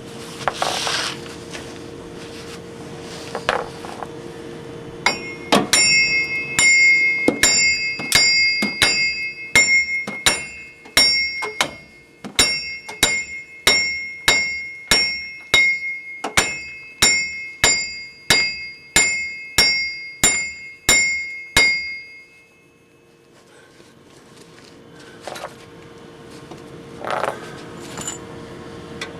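A hammer pounding on a ringing steel part at about two blows a second, from about five seconds in until about twenty-two seconds in. Each blow rings at the same metallic pitch, with a few single knocks before and after the run.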